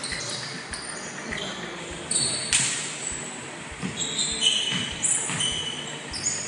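Basketball game on a hardwood gym court: several short, high sneaker squeaks and ball bounces, with one sharp bang about two and a half seconds in, echoing in the large hall.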